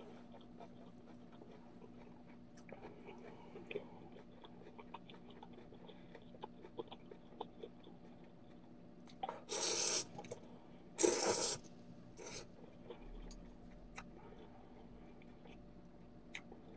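Quiet chewing with soft scattered clicks, then two loud slurps of instant ramyeon noodles, each well under a second and about a second apart, roughly nine and eleven seconds in.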